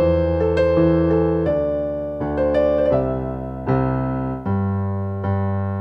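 Background music: an electric piano playing a melody of struck, fading notes over held low chords.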